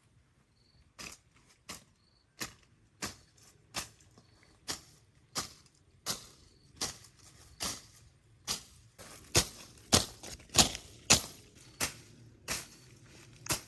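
Sharp knocks or steps repeating at a steady pace, about three every two seconds, growing louder toward the middle and easing off slightly near the end.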